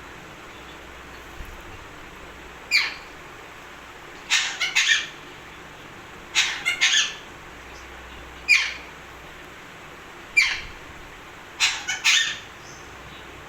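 Pet parrot calling: short, shrill squawks that fall in pitch, some single and some in quick runs of two or three, repeated every second or two.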